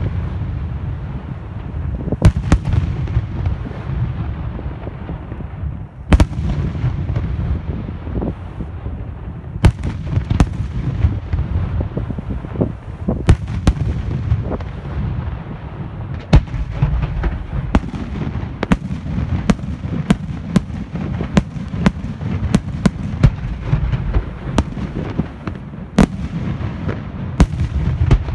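Aerial firework shells bursting in a professional display: sharp bangs over a continuous low rumble, a few seconds apart at first and coming in quick succession from about halfway through.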